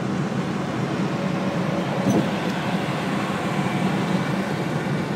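Steady road and engine noise inside a moving car's cabin at speed, with a brief knock about two seconds in.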